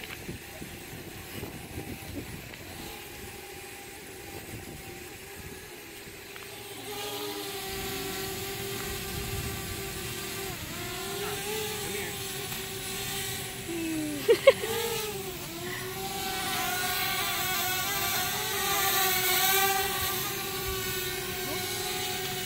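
Small quadcopter drone flying: a steady propeller hum that grows louder about seven seconds in and wavers in pitch as it manoeuvres. Two short, loud sharp sounds come about two-thirds of the way through.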